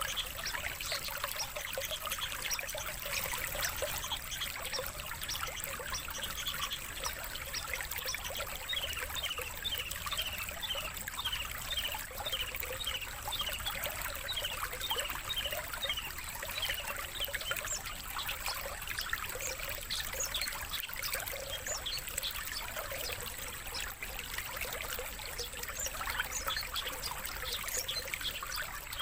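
Steady trickling water with songbird chirps laid over it, including a run of short, repeated chirps, about two a second, midway through.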